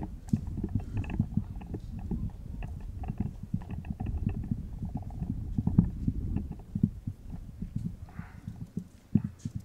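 Typing on a laptop keyboard at the lectern, picked up through the microphone as an irregular run of dull taps and thumps.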